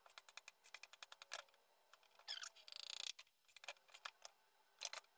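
Faint clicks and taps of hands and a spatula lifting and rolling semolina dough on a granite countertop, with a short scrape about halfway through.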